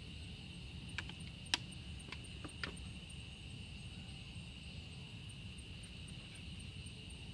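Steady drone of night insects over a low background rumble, with a few sharp small clicks and taps between about one and three seconds in, the loudest about a second and a half in.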